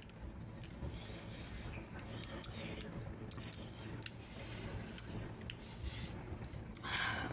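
A person chewing and eating close to the microphone: scattered wet and crunchy mouth sounds and clicks, the loudest burst near the end, over a steady low hum.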